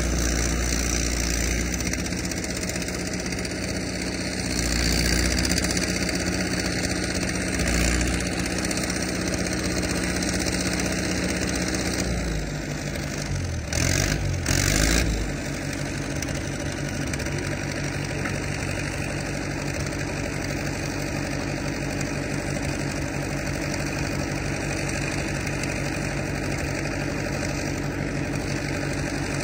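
Caterpillar 955 track loader's diesel engine idling steadily. About halfway through the note shifts, with two short surges, then it settles into a lower, pulsing idle.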